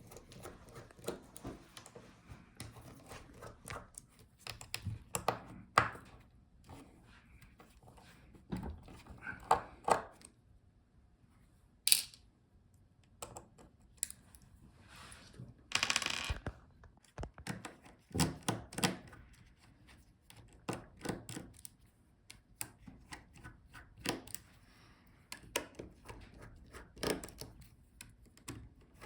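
Scattered light clicks, taps and knocks of small tools and laptop parts being handled while the display hinges are taken out. There is a sharp high click about twelve seconds in and a brief scraping rasp about four seconds later.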